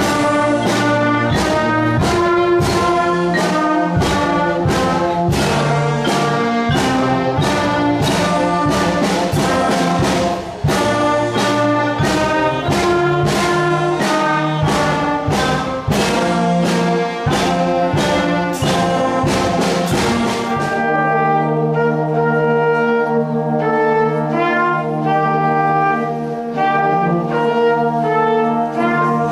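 Children's school wind band of clarinets, trumpets, saxophones and tubas playing together, with a sharp, steady beat under the notes for about the first twenty seconds; then the beat drops out and the band holds sustained chords.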